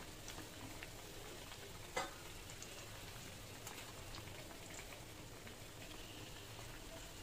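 Kachoris deep-frying slowly in hot oil in a steel pan: a faint, steady sizzle with scattered small crackles, and one sharp click about two seconds in.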